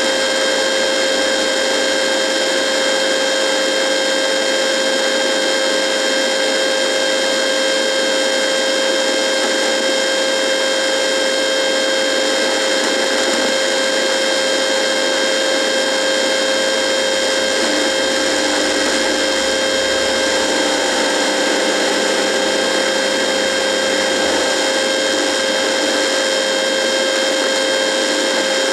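A radio buzzing: a steady, unchanging electrical buzz with a strong mid-pitched hum and a thinner high whine over a hiss.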